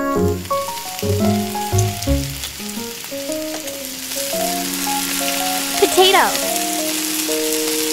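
Butter melting and sizzling in a small stainless steel wok, a fine frying hiss that builds from about three seconds in, over a light background tune.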